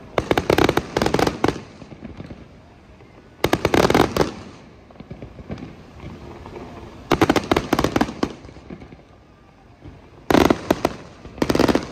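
Fireworks fired in rapid volleys: five bursts of quick-fire bangs and crackles, each lasting about a second and coming every three to four seconds, with a low rumble in between.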